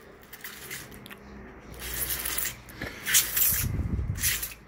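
Short scraping, rustling handling noises, in several bursts, as a black plastic nursery pot holding a kowhai sapling is gripped and turned by hand on a glass tabletop. A low rumble comes in the second half.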